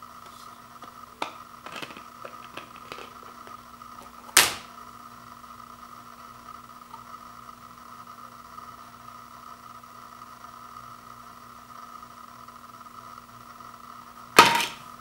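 Blu-ray disc being handled in its plastic case: a few light clicks and ticks, then a loud sharp snap about four seconds in as the disc comes off the case's centre hub, and another loud sharp plastic snap near the end. A steady faint hum runs underneath.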